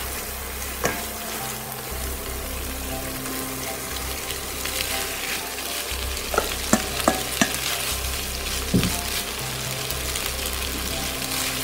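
Butter, crème fraîche and shallots sizzling in a nonstick frying pan while spätzle noodles are added and stirred. A nylon spatula knocks and scrapes against the pan about a second in and several times in the second half.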